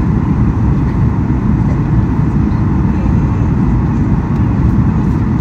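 Steady cabin roar inside a Boeing 737-800 in flight: airflow over the fuselage and its two CFM56-7B engines make an even noise, heaviest in the low end.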